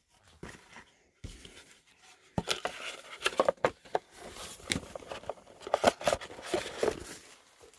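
Trading-card packaging being opened by hand: crinkling and tearing of wrapper and cardboard with many quick sharp clicks and taps. A soft thump comes about a second in, and the crackling starts a second or so after that.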